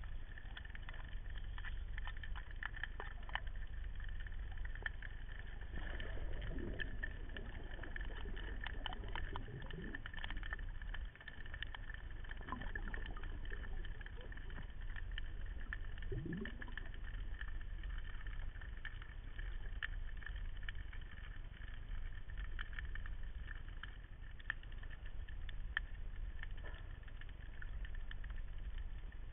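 Muffled underwater noise picked up by a camera in a waterproof housing: a steady low rumble with scattered clicks and crackles. A few brief rising tones come through in the middle.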